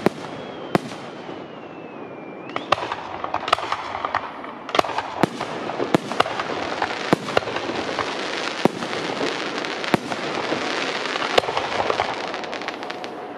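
Fireworks display: shells bursting with many sharp bangs, some close together, over a thick continuous noise that builds after about four and a half seconds. A whistling tone glides down in pitch during the first two and a half seconds.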